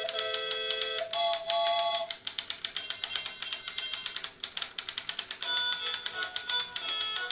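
A hand-cranked toy movie projector clicks rapidly as its crank is turned. A simple electronic tune plays in held notes alongside the clicking, which is the toy's built-in sound while the handle is spun.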